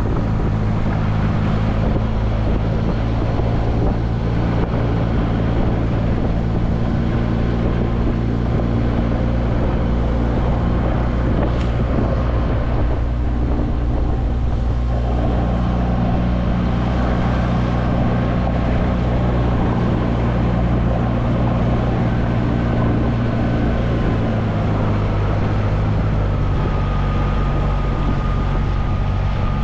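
A 20 hp Tohatsu outboard motor runs steadily, pushing an inflatable boat across a lake, and its engine note shifts a couple of times, about halfway through and near the end. Wind buffets the microphone over the rush of water.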